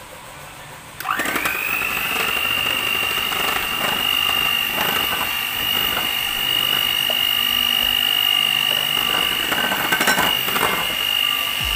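Electric hand mixer switched on about a second in, its motor spinning up with a brief rising whine and then running with a steady high whine as the beaters whip powdered whipped-cream mix with ice water.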